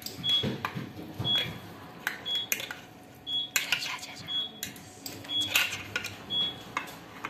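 A metal fork scraping and tapping against an opened tuna can as the tuna is worked out, giving irregular metallic clicks and knocks. A faint short high beep repeats about once a second.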